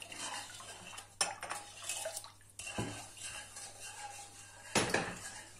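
Stainless steel saucepan clattering as it is handled and set on a gas stove: a few separate metal clinks and knocks, the loudest near the end.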